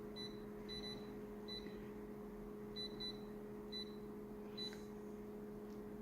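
Faint short high electronic beeps, about a dozen at irregular intervals, some in quick pairs, over a steady low electrical hum.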